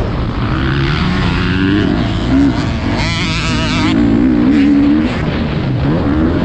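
Motocross bike engine revving up and down repeatedly as it is ridden hard through the gears.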